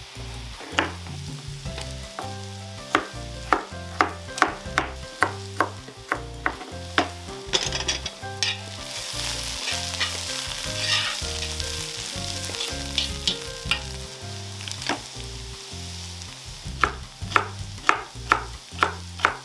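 Carrot and onion sizzling as they fry in a wok in rendered mutton tail fat, stirred with a spatula. Runs of sharp clicks about twice a second cut through the sizzle, and it is loudest around the middle.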